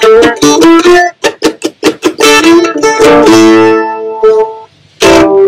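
F-style mandolin played with a pick: quick picked runs, then notes left ringing, ending on a short final chord near the end that cuts off sharply.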